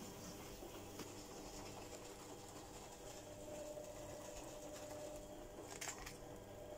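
Quiet kitchen room tone: a faint steady hum and hiss, with a light click about a second in and a couple more near the end.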